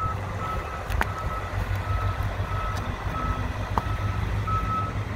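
A vehicle's warning beeper sounding a steady string of short high beeps, roughly two to three a second, over an idling engine's low rumble. A couple of sharp metal clicks come from a screwdriver prying the battery's cell connector caps loose.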